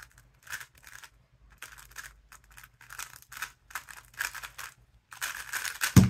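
A 3x3 speedcube being turned at speed: quick runs of plastic clicking and clattering as the layers snap round, with short pauses between bursts. It ends with a slap of both hands onto the Speed Stacks timer pad, stopping the solve.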